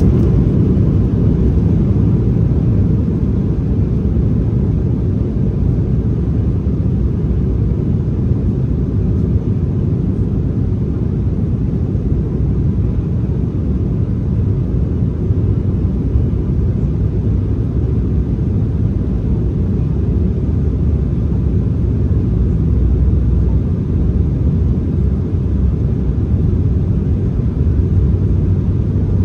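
Steady low rumble inside the cabin of a regional jet airliner as it taxis, with the engines running at low power and the plane rolling along the taxiway.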